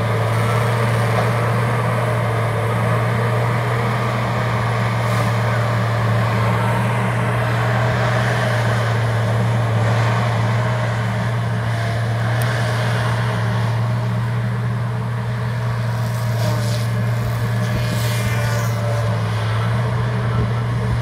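Feller buncher's diesel engine running steadily under load, with a few brief sharp cracks over it, mostly in the second half.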